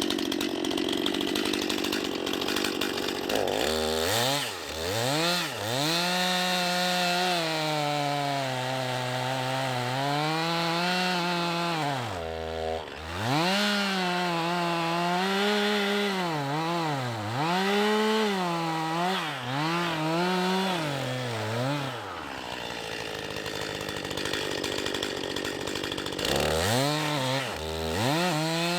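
Two-stroke chainsaw with a 20-inch bar running while cutting a large red oak log, its engine pitch rising and falling over and over. The pitch steadies into denser noise for a few seconds about three-quarters of the way through, then swings again near the end.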